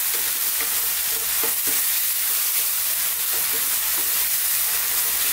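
Chicken, mushrooms and thick cooking cream sizzling steadily in a hot frying pan while a wooden spoon stirs through them, with a few brief scrapes of the spoon against the pan.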